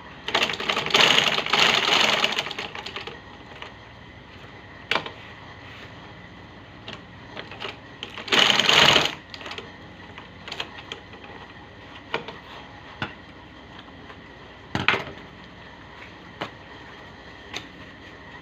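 Sewing machine stitching shoe uppers in two runs, one of about two and a half seconds at the start and a shorter one of under a second about eight seconds in, with scattered clicks and taps between.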